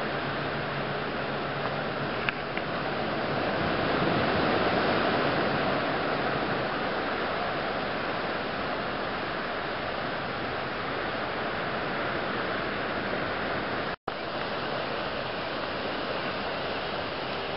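Steady rush of ocean surf breaking on the beach, swelling a little about five seconds in, with a momentary cut to silence near the end.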